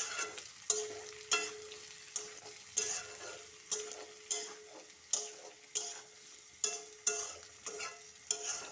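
Chicken and potato pieces being stirred in a kadai of hot oil and spices, sizzling, with a scrape of the stirring utensil against the pan about every two-thirds of a second. A faint steady hum runs underneath.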